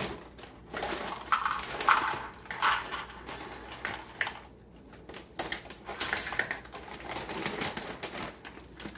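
Plastic snack bag crinkling while mini pretzel twists are scooped with a measuring cup and poured into a plastic mixing bowl, in irregular bursts of rustling and rattling with a quieter lull in the middle.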